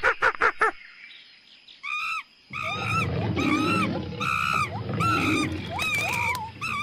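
The tail of a fast rhythmic animal call cuts off under a second in. After a short quiet gap, high-pitched, arching animal calls repeat about twice a second over a low rumble.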